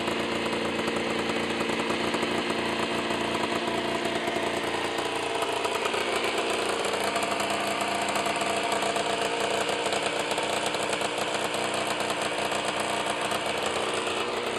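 Aprilia ETX 125's two-stroke single-cylinder engine running steadily at idle, its pitch wavering slightly around the middle.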